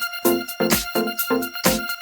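Electronic background music with a steady, quick beat.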